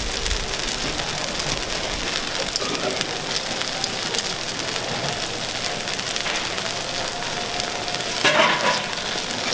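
Takoyaki sizzling in a hot takoyaki pan, a steady crackling fry, with a brief louder noise about eight seconds in.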